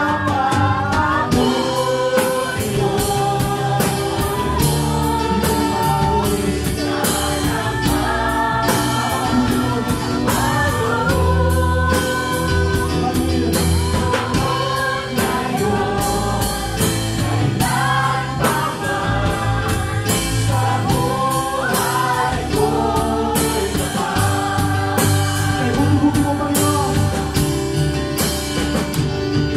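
Live gospel worship band playing: a drum kit keeps a steady beat under guitar while voices sing the melody.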